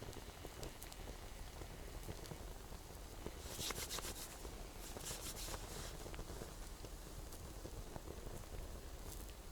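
Swedish torch log fire crackling and hissing, with scattered sharp pops and two denser runs of crackling about three and a half and five seconds in.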